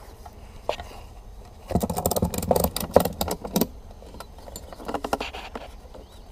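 A lashing strap being pulled tight and fastened around stacked wooden beehive boxes. Its buckle gives a quick run of clicking and rattling about two seconds in, and a shorter rattle near five seconds.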